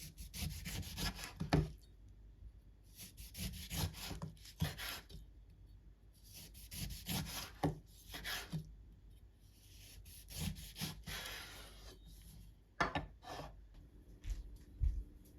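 Repeated scraping strokes, about five of them, each a second or two long with short pauses between, followed by a few light taps near the end.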